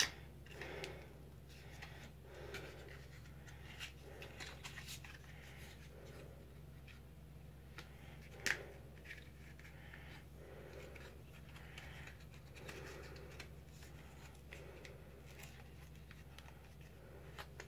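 Faint scratching and small ticks of fingers picking at the wrapper of a small bar of face soap, trying to open it, with one sharper click about eight and a half seconds in.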